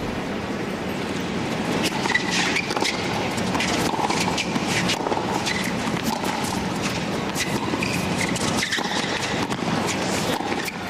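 Tennis ball bouncing on the hard court before the serve, then sharp pops of racket strings hitting the ball through the serve and the rally that follows, over a steady low background rumble.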